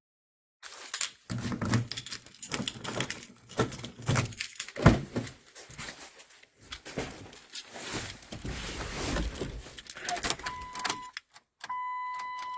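Keys jangling and clicks and rustles of handling the car, then near the end a steady electronic warning tone from the Dodge Caliber's dash as the ignition is switched on. No engine cranking is heard, typical of the no-crank fault.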